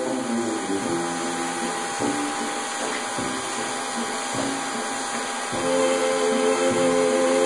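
Background music of sustained held chords, softer in the middle and swelling louder again about five and a half seconds in.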